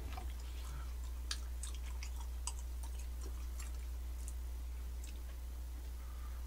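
Quiet eating sounds: soft chewing of sticky rice cake and sips from a glass of iced cola, with a few scattered small clicks over a steady low hum.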